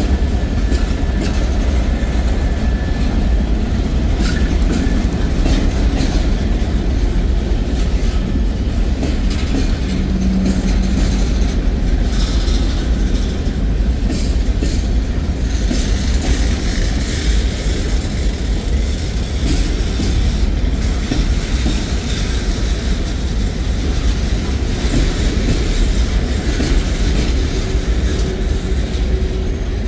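Freight train boxcars rolling past: a steady rumble of steel wheels on the rails, with clickety-clack as the trucks cross rail joints.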